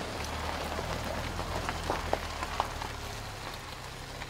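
Outdoor ambience: a steady hiss with a faint low hum underneath and a few brief faint chirps or ticks around the middle.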